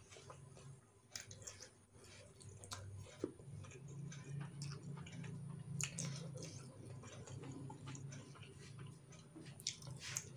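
Close-up mouth sounds of someone eating: chewing with irregular wet clicks and lip smacks, over a low steady hum.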